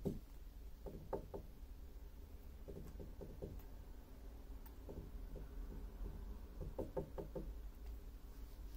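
Soft knocking taps in quick groups of three to five, repeated every second or two, over a low steady hum.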